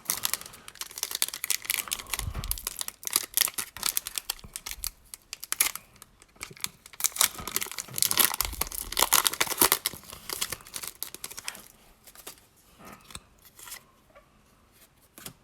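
A foil Pokémon booster pack wrapper being torn open and crinkled in the hands, a dense crackling that dies down about twelve seconds in to fainter handling.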